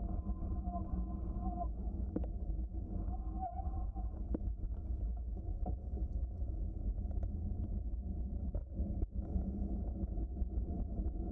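A bicycle rolling along a trail, heard from a camera mounted on the bike: a steady low rumble of tyre and frame vibration, with a few light clicks and rattles.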